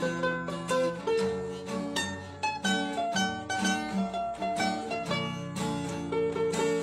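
Background music led by a plucked string instrument, mandolin-like, playing a light, bouncy tune.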